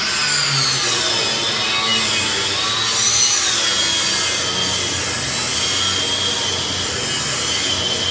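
Small handheld grinder cutting steel window-frame stock: a continuous grinding noise with a high whine that wavers in pitch.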